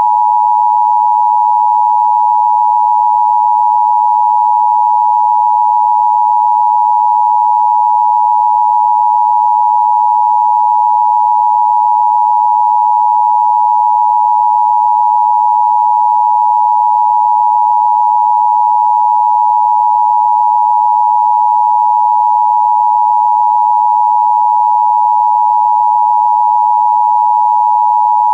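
Emergency broadcast attention signal: a loud, steady, unbroken electronic tone near 1 kHz that holds without change.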